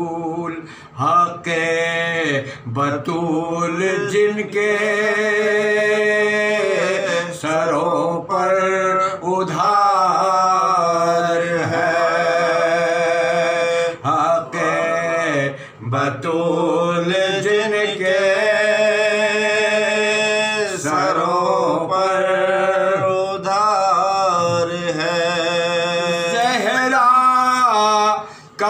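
Two men chanting a soz, a mournful Urdu lament, unaccompanied, in long held notes with an ornamented, wavering melody and brief pauses for breath.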